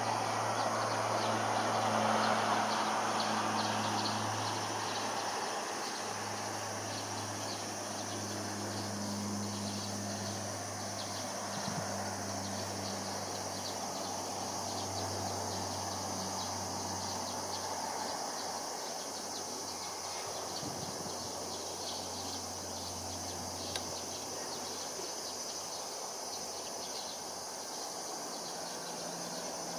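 Insects chirping in a fast, even pulse over a steady low hum, with a broad rushing noise that fades over the first several seconds.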